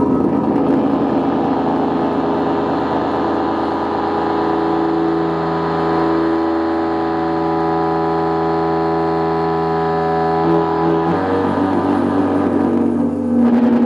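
Electric guitar feedback drone: a loud, dense mass of held, overlapping tones over a noisy haze, sustained without a break. The set of pitches shifts lower and changes about eleven seconds in.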